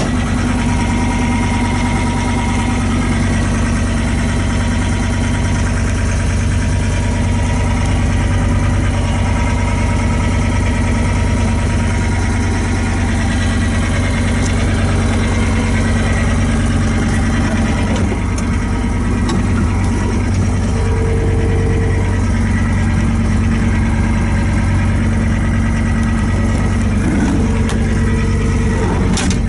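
Diesel engine of a John Deere 325 skid steer running steadily.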